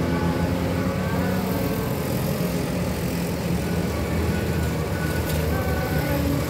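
Road traffic of motorcycles and cars passing close by, their engines running steadily.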